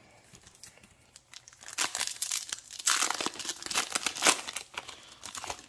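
The foil wrapper of a Yu-Gi-Oh! booster pack being torn open and crinkled in the hands: a run of rustling crinkles and tearing that starts about two seconds in.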